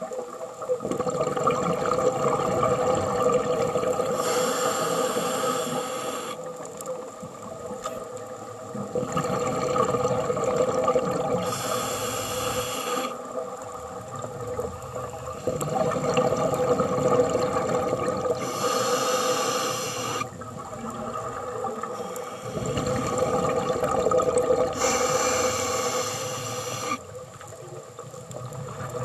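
Scuba diver breathing through a regulator, heard underwater: four hissing bursts of exhaled bubbles, one every six or seven seconds, over a steady hum.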